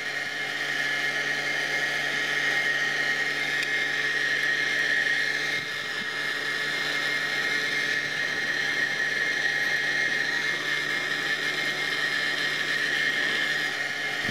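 Blower fan drawing the newly lit charcoal fire of a coal-fired miniature steam locomotive, running with a loud, steady high whine.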